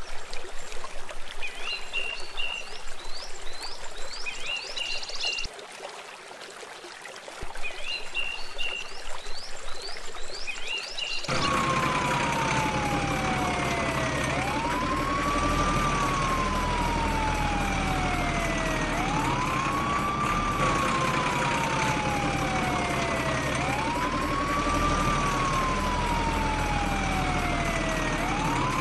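Emergency-vehicle siren wailing, starting about eleven seconds in: the tone falls slowly over about four seconds, then sweeps quickly back up, four times over, with a low rumble beneath it. Before it come a few brief clusters of high chirps.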